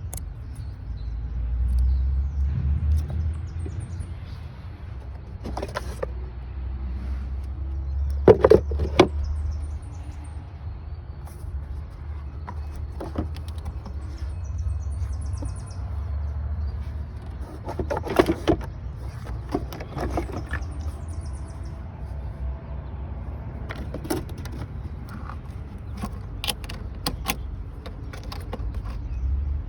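Scattered clicks, taps and clatter of hand work on plastic push-tab connectors and hoses in an engine bay, loudest in two clusters about eight and eighteen seconds in, over a steady low rumble.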